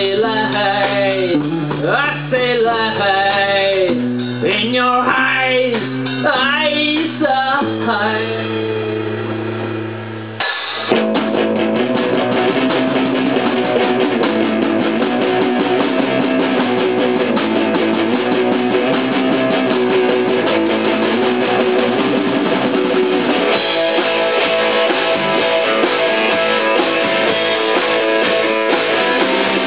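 Rock band playing live on electric guitar, bass guitar and drums. For the first ten seconds a singer holds wavering notes over sustained chords. About ten seconds in, the full band comes in louder for an instrumental section driven by strummed electric guitar.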